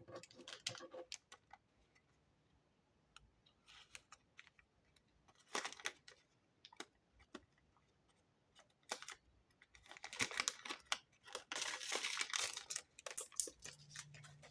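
Faint handling of plastic packaging: scattered small clicks and taps, with a longer stretch of crinkling and rustling about ten seconds in.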